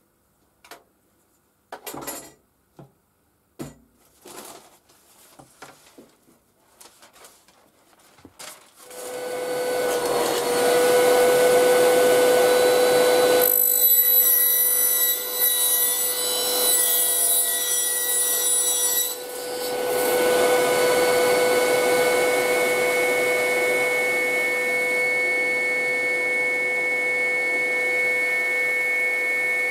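A few knocks of a plywood sheet being handled, then a workshop shop-vac extractor starts about nine seconds in and runs steadily with a constant whine. A higher whistle joins for several seconds in the middle, and the level dips briefly just after.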